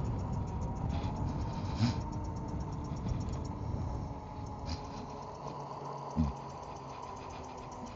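Emove Roadster electric scooter riding along: a faint motor whine that glides in pitch over steady wind and tyre rumble. A faint, rapid, even ticking runs through it, which the rider takes for the front brake disc scrubbing, perhaps slightly warped. There are two short knocks, about two seconds and six seconds in.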